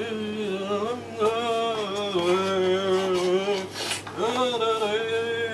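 A man singing in long, held notes, in three phrases with short breaks between them.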